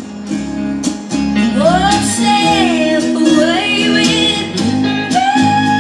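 A country song with a singer and guitar playing through a vintage Ford truck AM/FM stereo radio that has been converted to modern internals.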